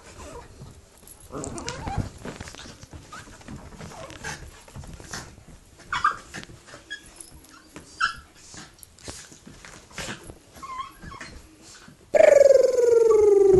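Two small dogs play-fighting: low growls and a few short yips, then near the end a loud, drawn-out dog whine that falls in pitch.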